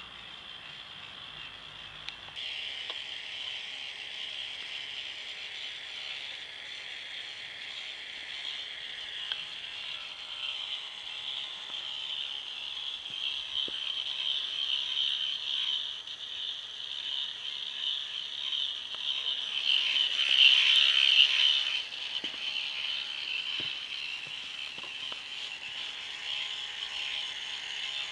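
Electric motor driving the plastic K'NEX gear train of an eight-wheeled model car: a steady high whine with gear rattle that swells loudest about twenty seconds in, then settles back.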